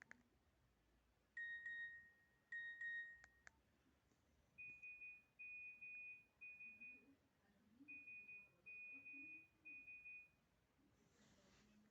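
Nokia 1616 mobile phone playing simple electronic tone beeps through its small speaker, quiet: two longer tones, then two groups of three short beeps at a higher pitch.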